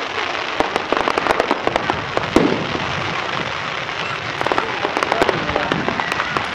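Fireworks display going off: a steady hiss and crackle with many sharp cracks and pops, in dense clusters with a few heavier bangs among them.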